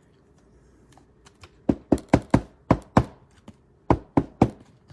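A series of sharp taps on a hard surface, about six in quick succession and then three more near the end.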